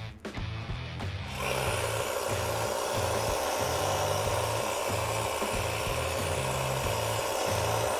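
A hedge trimmer starts about a second and a half in and runs steadily with a constant whine while its blades cut through a beech hedge, over background music with a steady bass beat.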